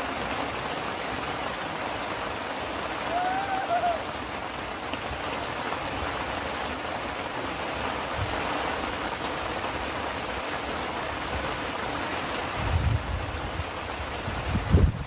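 Steady rain falling on the canopy overhead and the lake shore, with a short two-note chirp about three seconds in and a few low thumps near the end.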